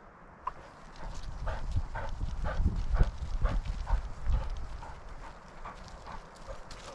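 A dog trotting on a dirt trail, heard from a camera mounted on its back: its footfalls and body jolting the mount in a steady rhythm of about two a second, strongest over the first half.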